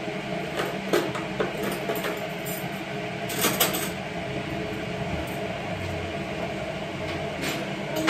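Steady mechanical hum with several held tones, with scattered light clicks and knocks and a brief louder clatter about three and a half seconds in.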